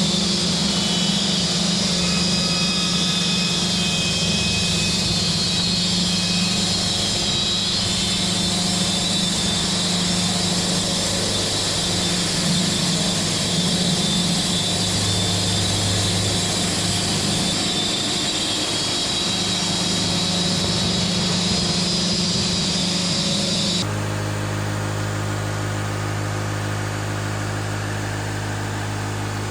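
Engine running steadily under load, with a bright high hiss over a low hum. About 24 seconds in it switches abruptly to a smoother, steady engine idle.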